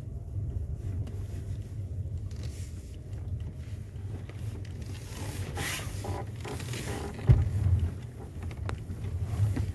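Skoda Octavia A5 heard from inside while driving over uneven road: a steady low road rumble with short creaks and knocks over the bumps, and one sharp thump about seven seconds in. The creaking over bumps is the squeak the owner is chasing.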